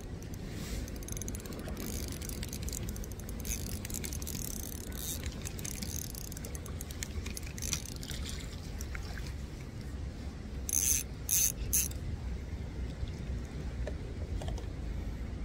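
Rapid mechanical clicking, like a ratchet. Three short, louder bursts come close together a little past the middle.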